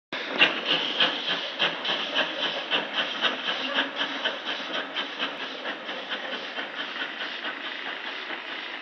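Pannier tank steam locomotive chuffing as it pulls away, its exhaust beats coming about four a second and growing fainter as it draws off.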